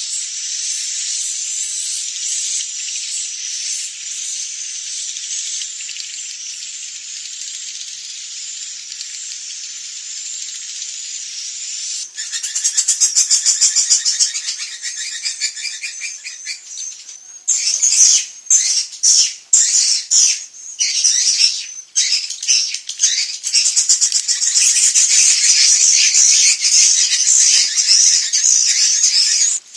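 Swiftlets twittering in a dense, high, shrill chatter: a swiftlet lure call of the 'inap senja' (dusk-roosting) type, played to draw swiftlets into a nest house. About twelve seconds in it grows louder. Near the middle it breaks into short separate bursts, then runs on as a loud continuous chatter.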